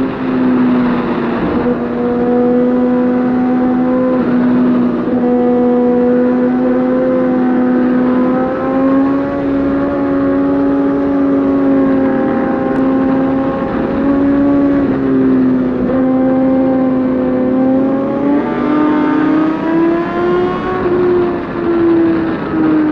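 Suzuki GSX-R1000 inline-four engine running at steady high revs, its pitch holding with small shifts, then rising a few seconds before the end and easing off again.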